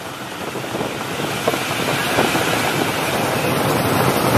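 Wind buffeting the microphone over the rumble of a wooden cart being towed at speed behind a truck, growing steadily louder.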